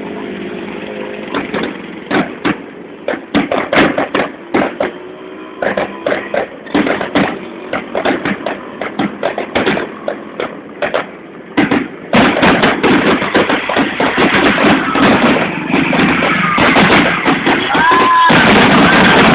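Fireworks display: a run of separate bangs and pops, then about 12 seconds in a dense, continuous barrage of crackling bursts, with a few whistling glides near the end.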